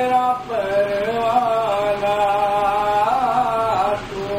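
A man singing a naat solo into a microphone, holding one long, wavering note through most of it with a brief rise and fall near the end.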